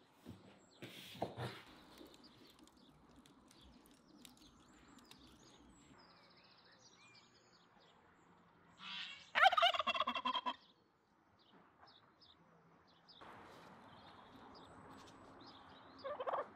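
Domestic turkey gobbling: one loud, warbling gobble lasting just over a second about nine seconds in, and a shorter call near the end.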